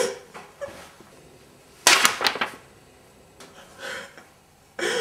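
A sudden sharp crack about two seconds in, made of a few quick strikes that die away within about half a second, and a fainter short sound near four seconds.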